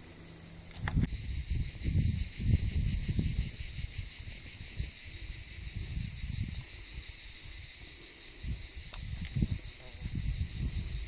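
A steady high chorus of insects that sets in about a second in, with gusts of wind buffeting the microphone.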